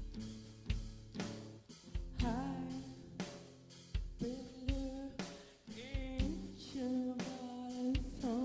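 Background pop music with a steady drum-kit beat; a singing voice comes in about two seconds in and carries the melody to the end.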